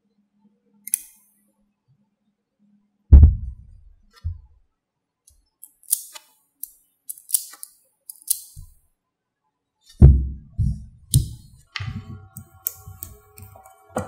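Small magnetic metal balls clicking and snapping against each other as a ball-magnet model is pulled apart and pressed together by hand. Scattered sharp clicks mix with a few heavy low thumps of handling; the loudest thumps come about three seconds in and about ten seconds in.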